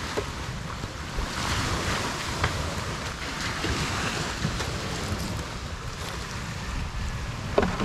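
Small waves washing onto a rocky shore, with wind buffeting the microphone; a short louder knock near the end.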